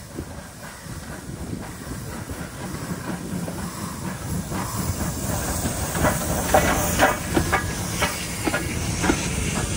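Steam tank locomotive drawing closer and passing with a steady hiss of steam, then the coaches' wheels clacking over the rail joints, about two clicks a second. The sound grows louder as the train nears.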